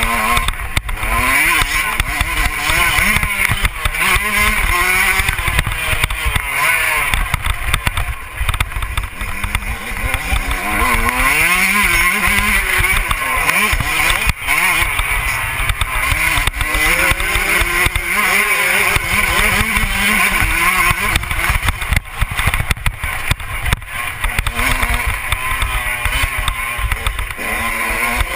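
Motocross bike engine revving up and falling back again and again as the bike accelerates and shifts along a dirt track. Steady wind buffeting on the bike-mounted camera's microphone runs underneath.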